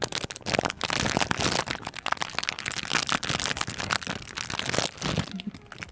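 Clear plastic snack bag crinkling and rustling as it is handled right up against a microphone, a dense run of crackles that dies away near the end.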